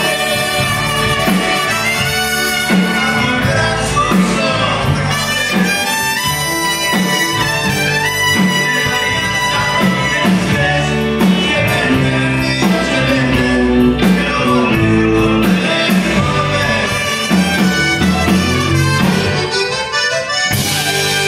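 Live Tex-Mex band playing a ranchera, with button accordion, electric guitar, trumpet, drums and bass, in a steady, loud full-band passage.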